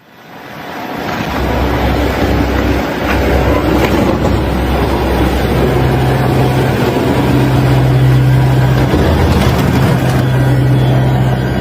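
An engine running steadily under a loud rushing noise, fading in over the first couple of seconds, with a steady low hum that strengthens about halfway through.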